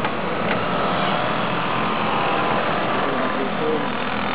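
VéloSoleX mopeds' small two-stroke engines running off to the side, a steady buzzing drone.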